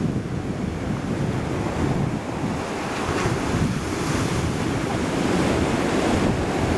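Black Sea waves surging and breaking on the shore, with strong wind buffeting the microphone.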